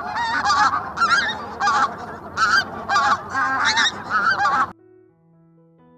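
Pink-footed geese honking: repeated wavering calls, about two a second, over a steady noisy background. They cut off suddenly about three quarters of the way through.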